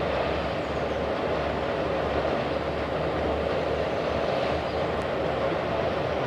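Steady low rumbling noise that holds evenly throughout, with no distinct strokes or tones.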